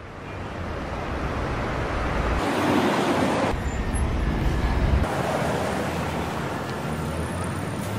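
Wind and road noise on a camera mounted outside a moving car, a dense rush with a heavy low rumble. It fades in over the first couple of seconds, and the rumble changes abruptly a few times.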